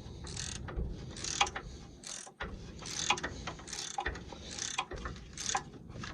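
Socket ratchet clicking in short runs, over and over, as it is swung back and forth on an 8mm socket to undo a rear anti-roll bar drop link bolt.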